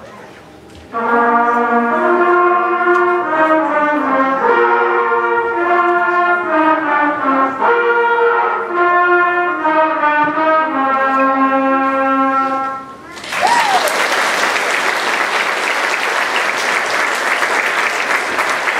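Brass instruments of a fifth- and sixth-grade school band play a short tune of held, stepping notes for about twelve seconds. The audience then applauds.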